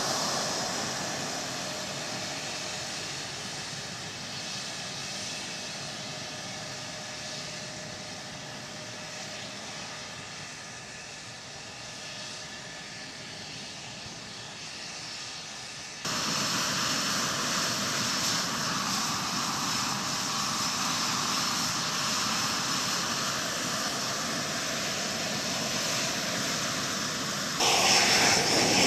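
F-16 jet engines running on the flight line: a steady jet hiss and rumble with a held whine. It jumps abruptly louder at a cut about 16 seconds in and again near the end.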